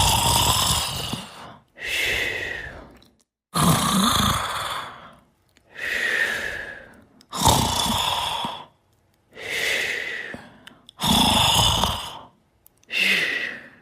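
A sleeper snoring: a rasping snore on each in-breath followed by a shorter out-breath, in a steady rhythm of about one breath every three and a half to four seconds, four breaths in all.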